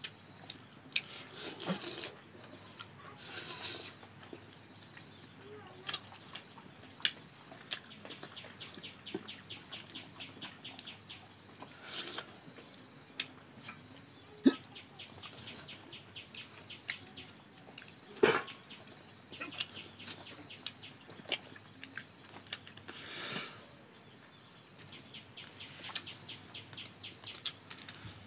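Close-up eating sounds of fried fish eaten by hand: chewing, lip smacks and sharp wet clicks scattered throughout, a few of them louder. A steady high-pitched whine runs underneath.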